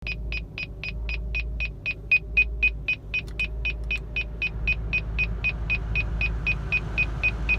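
Car dashboard warning chime beeping rapidly and steadily, about four beeps a second, over the low rumble of the running car. It is the low-voltage warning of a failing charging system, which the owner suspects is a bad alternator.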